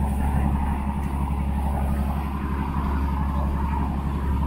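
A tour boat's engine running steadily, a low even drone heard from on board.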